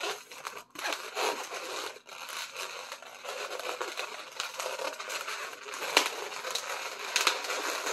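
Latex 260 modelling balloon squeaking and rubbing as it is twisted into small loops by hand, with two sharp clicks near the end.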